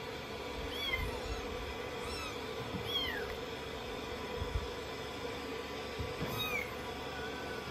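Young kitten meowing in short, high cries that fall in pitch, about four times plus a faint one near the end, while being shampooed in a basin of soapy water. A steady background hum runs underneath.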